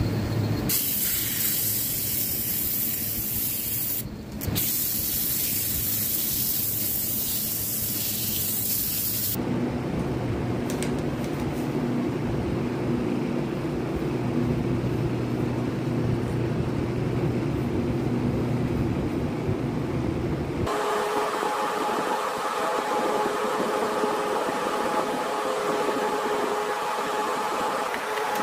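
Wood lathe and workshop machinery running steadily, with a loud even hiss over the first nine seconds. The machine hum changes suddenly to a higher, steadier tone about twenty seconds in.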